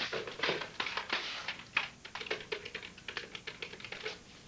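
Quick, irregular run of sharp clicks and knocks from a telephone being picked up and its push buttons pressed to dial.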